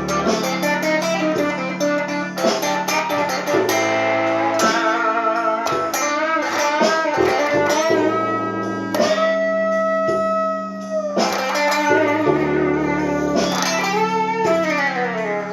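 Blues guitar playing single-note lines with string bends, a long held note in the middle and bent notes sliding down near the end, over steady low notes.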